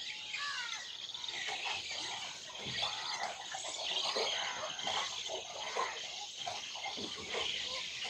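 Many birds calling and chirping together in a steady background chorus, with no single call standing out.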